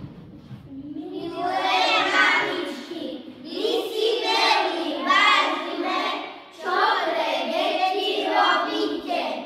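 A group of young children singing together, starting about a second in, in phrases of about three seconds with short breaks between them.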